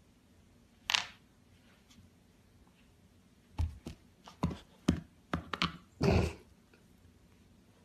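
An ice cube knocking and skittering on a hardwood floor as a golden retriever puppy paws at it and mouths it: one sharp knock about a second in, then a quick run of clicks and knocks, ending in a short scrape.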